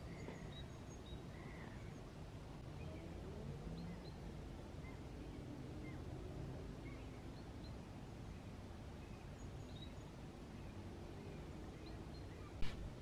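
Outdoor ambience in a pine wood: a steady low background hum with small birds chirping now and then, and one sharp click near the end.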